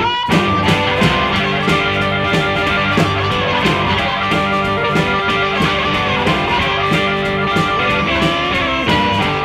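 Rockabilly background music led by electric guitar, with a steady beat.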